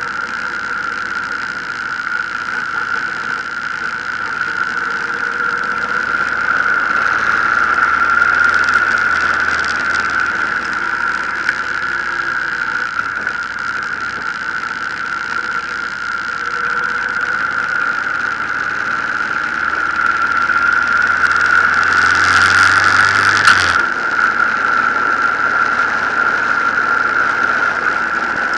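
Riding noise from a 2007 Honda VTX 1800 cruiser at road speed: steady wind and road rush with a high whistle running over it, and the V-twin engine low underneath, swelling twice as the bike gains speed. A brighter rush of noise cuts off suddenly near the end.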